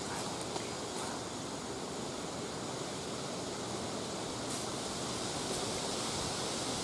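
Steady, even rushing noise of wind moving through the oak leaves around the tree stand.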